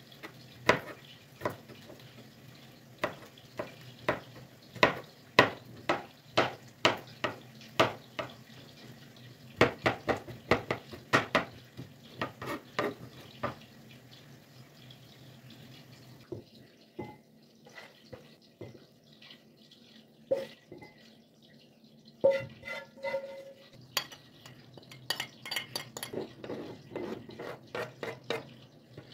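Kitchen knife chopping garlic cloves on a plastic cutting board: a fast, irregular run of sharp knocks for the first half or so. After that come fewer, lighter taps and scrapes as the minced garlic is gathered and scraped off into a glass bowl, over a faint steady low hum.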